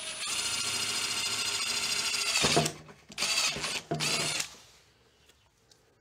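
Brushless cordless drill (Milwaukee FUEL) running a step drill bit through the plastic of a scooter trunk. It gives a steady whine for about two and a half seconds that swells just before it stops, then two short bursts about half a second each.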